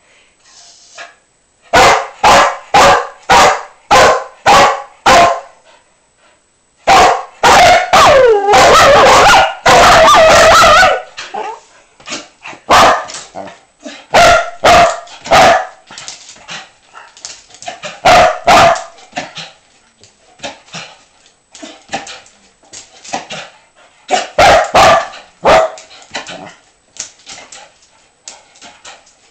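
Dog barking at a squeaky toy set out of reach on top of the oven: a quick run of about seven sharp barks, then a long unbroken stretch of barking about seven seconds in, then scattered barks.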